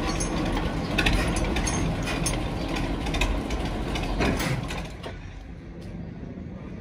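Narrow-gauge diesel locomotive No. 9 'Alf' running at idle, with several sharp metallic clanks from its controls and gear. About five seconds in, the sound drops to a much quieter background.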